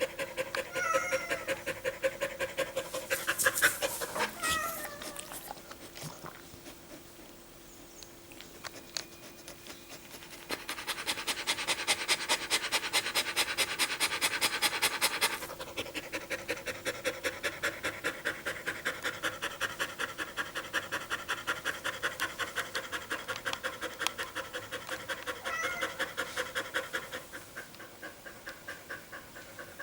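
Dog panting fast and steadily, cooling itself after a run in summer heat. The panting eases for a few seconds about a third of the way in, then is loudest for a few seconds before settling again. A couple of short knocks come about four seconds in.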